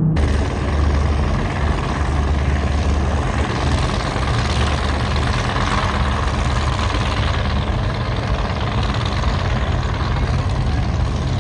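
High-performance powerboat engine running loud and steady: a deep low rumble under a wide wash of noise.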